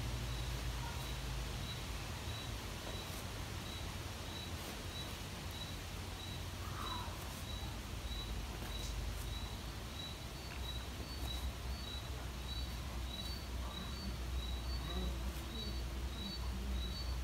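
Garden ambience: a steady low rumble under a short, high-pitched chirp that repeats evenly about twice a second. Near the end a second, slightly higher chirp series joins in.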